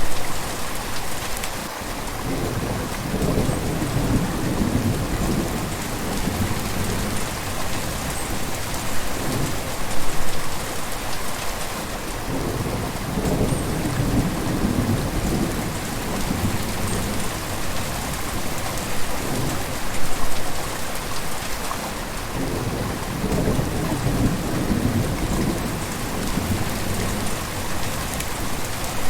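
River water flowing, a steady rushing with deeper low surges that swell and fade about every ten seconds.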